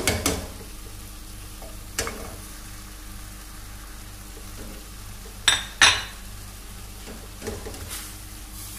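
Diced turkey frying in a stainless steel pan on a gas stove: a steady sizzle while it is stirred with a spatula as spices go in, with a few sharp knocks against the pan, the two loudest close together about five and a half seconds in.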